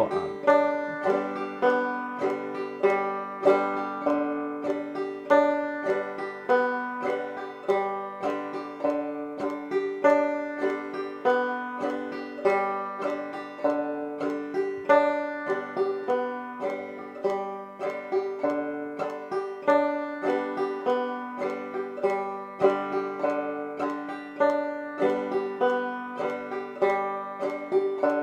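Banjo played clawhammer style: a fast, steady frailing strum picked on open strings with no chords fretted.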